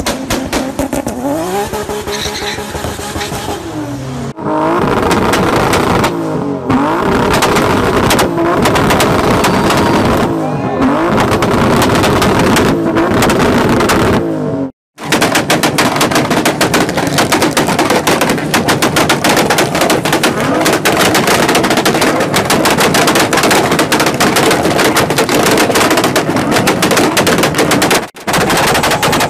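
Modified car exhausts on hard-revved engines, the pitch rising and falling with bangs as flames shoot from the tailpipes. About halfway in, a rapid unbroken crackle of exhaust pops, like machine-gun fire, takes over.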